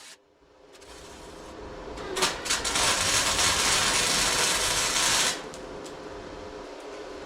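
A metalworking tool working on a steel bumper: a harsh, even hiss builds up, holds loud for a few seconds and cuts off suddenly, leaving a steady lower noise.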